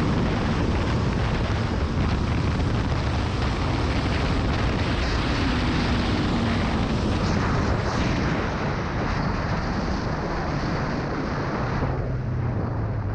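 Motorcycle riding at speed: heavy wind rush over the microphone with the engine running underneath. The wind eases near the end.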